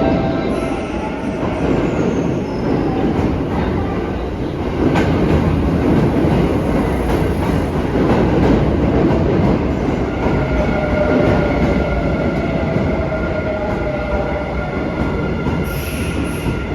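Electric commuter train running along the platform of an underground station, a steady rumble with wheels clattering over rail joints. Thin wheel squeal joins in from about ten seconds in.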